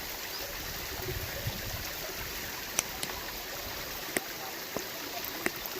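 Steady rush of running water from a waterfall and stream, with a few faint sharp clicks in the second half.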